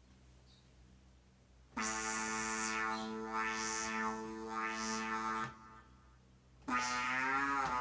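Synthesizer sound played from an Alesis Q49 MIDI keyboard: two held notes. The first has a brightness that swells and fades twice; the second, near the end, bends down in pitch and back.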